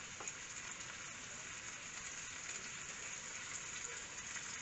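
Faint, steady sizzling of onions and beef cooking in hot oil at the bottom of a clay tagine on the stove.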